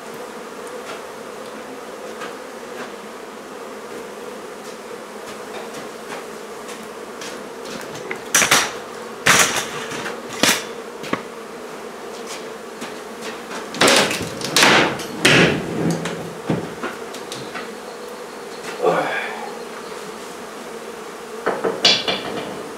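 Steady hum of a honey bee colony stirred up around an opened hive, broken by several loud knocks and bangs in clusters as the barn boards over the comb are pried and pulled apart.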